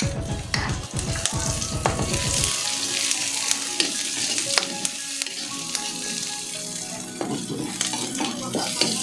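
Garlic, onion and ginger sizzling in hot oil in a wok, with a steady frying hiss while a ladle stirs them, clinking and scraping against the pan.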